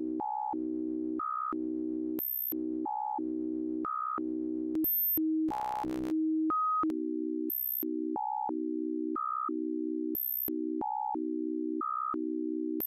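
Software modular synthesizer (VCV Rack VCO-1 oscillator driven by the SEQ-3 step sequencer) playing a repeating step sequence of electronic tones: mostly one low note, broken by higher blips and short very high squeaks, a few notes a second. Around five to six seconds in there is a brief buzzy burst, and after it the notes sound thinner and purer.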